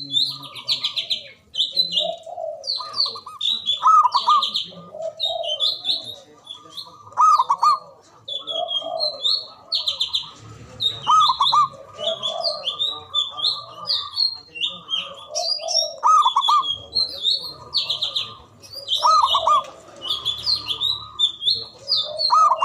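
Javanese zebra dove (perkutut) cooing, its rolling call phrase repeated every few seconds. Small birds chirp at a high pitch throughout.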